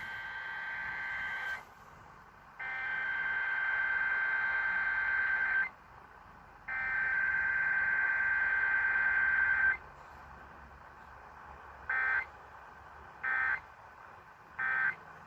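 Emergency Alert System digital data bursts on AM radio: a buzzing two-tone data signal sent three times in bursts of about three seconds, the coded message header, with the first starting just before. Then come three short bursts about a second apart, the end-of-message code, as in a Required Weekly Test without an attention tone.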